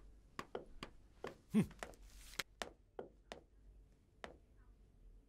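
Faint, irregular taps and knocks, about a dozen, from footsteps and a walking cane on the floor and a hand set on a wooden table. A short voiced sound comes about a second and a half in.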